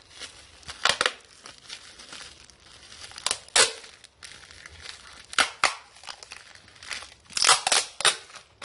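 Packaging material crinkling and tearing while a parcel is wrapped, in irregular short bursts with a few sharper ones.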